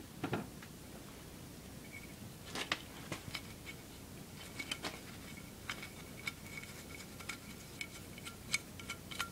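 Light, irregular metallic clicks and ticks as a small nut and bolt are fitted by hand and with a spanner into an aluminium engine crankcase cover, thicker after the first couple of seconds.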